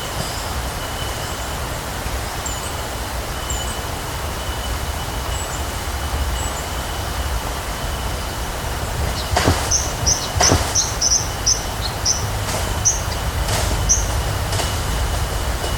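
Heavily amplified bush field recording: loud steady hiss and low rumble with a thin, steady high-pitched tone and scattered short high chirps. A little past halfway come two sharp knocks about a second apart, then a quick run of about a dozen high chirps and a few fainter knocks.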